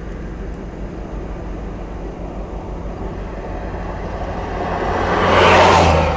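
A vehicle passes close by: its tyre and engine noise swells over the last couple of seconds, peaks near the end and falls away. Under it runs a steady low hum.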